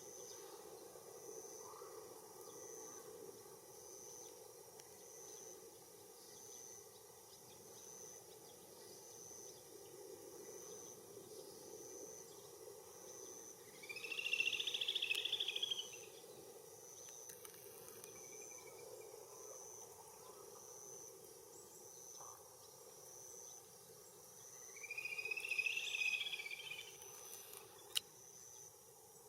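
An insect's high, short chirp repeating steadily about once a second over a low outdoor hum. Two louder buzzy calls of about two seconds each break in, one about halfway through and one near the end, with a single sharp click just after the second.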